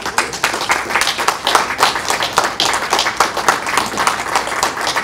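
A small audience applauding, the individual hand claps dense and quick, breaking out all at once.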